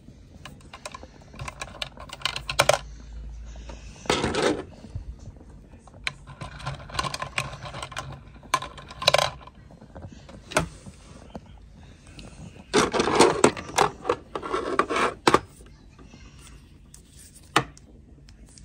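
Packaging and items being handled: a string of small clicks and light knocks, with bursts of rustling about four seconds in and again from about thirteen to fifteen seconds in.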